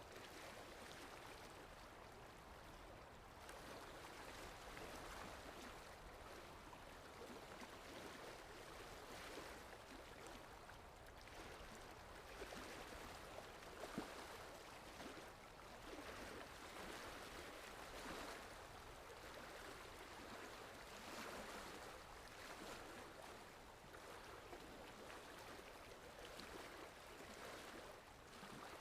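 Faint sea surf washing ashore, a soft, steady wash that swells and ebbs every few seconds, with one short tick about halfway through.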